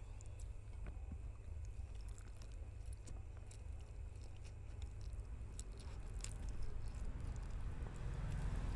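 Close-miked chewing of spicy noodles: soft wet mouth sounds and small clicks, fuller from about six seconds in. A steady low hum runs underneath.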